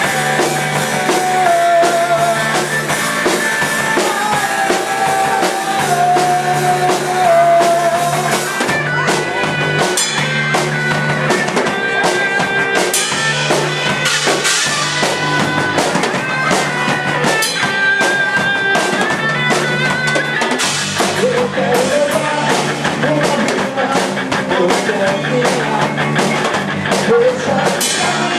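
Rock band playing: drum kit and guitar over a steady beat, loud and even throughout.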